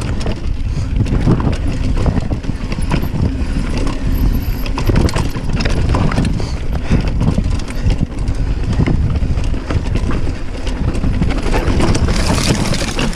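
Mountain bike descending a rocky dirt trail: tyres rolling and clattering over rocks and ruts, with a dense run of sharp knocks and rattles from the bike over a steady low wind rumble on the microphone.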